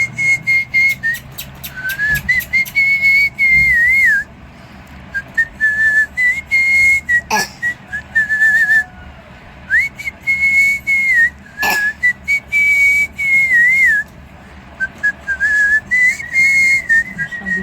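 Whistling: long held notes at a fairly steady high pitch with wavering turns, repeated with short gaps, mixed with sharp clicks and rattles and two louder knocks about seven and twelve seconds in.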